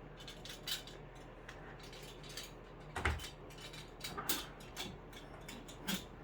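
Scattered light clicks and knocks of tools and a power cord being handled, with one heavier thump about three seconds in. The saw is not running.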